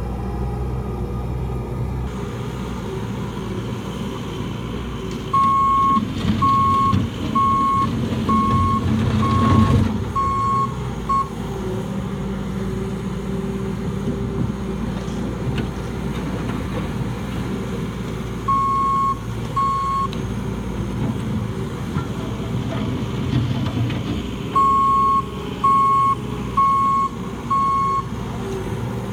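Bobcat skid-steer loader's engine running steadily while its back-up alarm beeps as it reverses: three spells of single-pitched beeps about once a second, seven, then two, then four.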